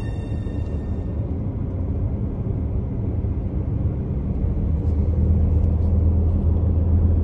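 Steady low rumble of road and engine noise inside a car travelling at highway speed, slowly growing louder.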